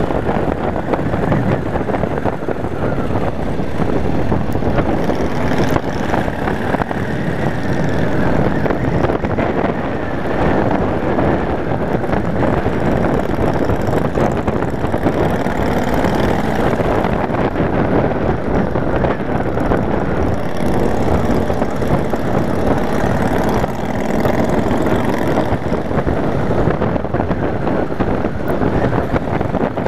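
Yamaha Wild Star cruiser's V-twin engine running steadily as the bike rides along, mixed with wind noise on the microphone.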